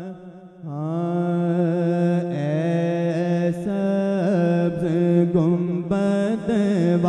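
Male naat reciter singing a slow, drawn-out melodic line into a microphone, his pitch wavering and gliding over a steady low drone. It swells in loudness under a second in.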